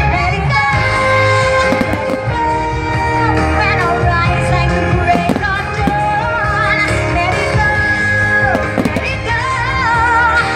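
Music with a singer's voice over a steady accompaniment, and several firework bangs breaking through.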